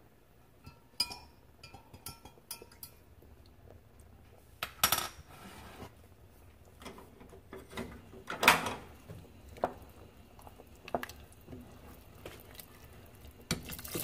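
Cookware and utensils clinking and knocking now and then, a few of the clinks with a short metallic ring.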